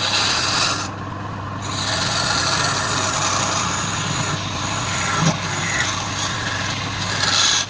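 Woodturning lathe running with a steady motor hum, and a hiss of tool work on the spinning wood that grows brighter at the start and again near the end.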